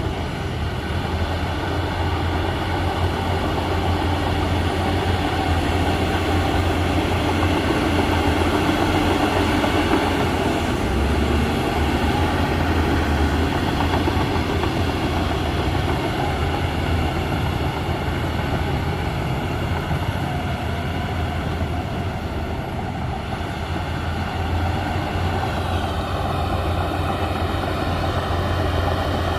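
Heavy earthmoving machine's diesel engine running steadily under work.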